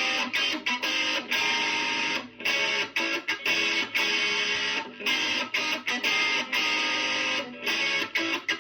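Guitar playing the melody of a pop song as a solo instrumental, with frequent sudden short breaks between phrases.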